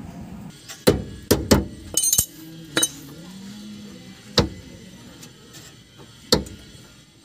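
Sharp metallic knocks and clinks of hand tools against the steel steering center post and linkage of a Suzuki Multicab, about seven irregular strikes with a quick rattling cluster about two seconds in.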